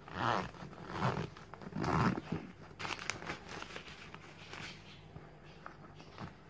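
Paper banknotes rustling and crinkling as a hand rummages through a cushion cover stuffed with cash. There are several louder rustles in the first two seconds or so, then softer, scattered crackles.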